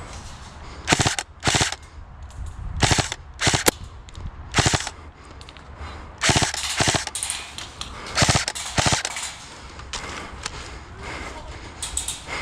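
Airsoft guns firing repeated short bursts of a few rapid shots each, with brief pauses between the bursts.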